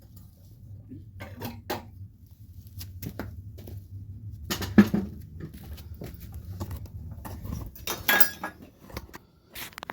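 Irregular metal clinks and knocks as a small engine is handled and pulled out of a minibike frame, with one louder clank about five seconds in. A low steady hum runs underneath and stops about eight seconds in.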